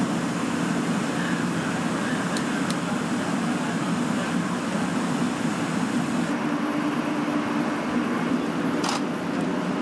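Steady engine drone of machinery running at the scene. About six seconds in, the hiss above it drops away, leaving a steadier hum.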